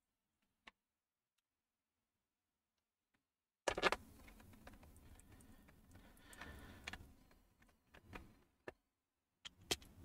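Plastic laptop bottom cover being pressed and snapped back onto the chassis. A few sharp clicks come about four seconds in, then a few seconds of rubbing and handling, and more scattered clicks near the end.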